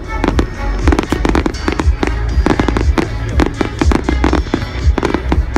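Fireworks bursting in rapid succession, many sharp bangs a second over a low rumble, with music playing along with the display.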